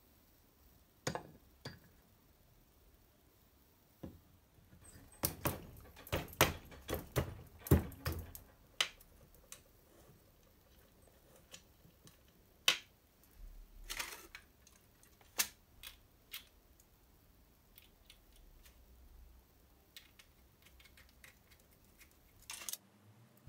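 Small metal parts and tools clicking and clacking against a Vespa engine's aluminium crankcase as they are handled and fitted by hand: a busy run of quick taps about five to nine seconds in, then single clicks spread out.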